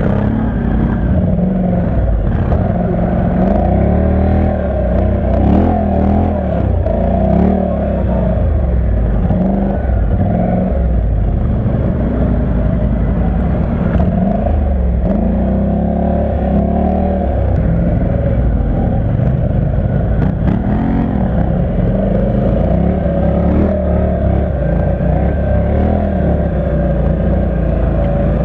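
ATV engine heard from on board the quad, running under load with its revs rising and falling again and again as the throttle is worked.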